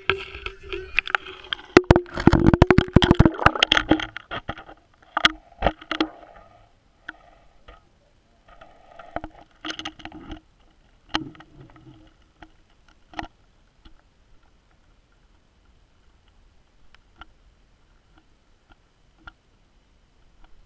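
GoPro in its waterproof housing being handled and dropped through a hole in the ice: a dense clatter of knocks and rubbing for the first few seconds, then scattered muffled knocks as it sinks, thinning out to faint ticks.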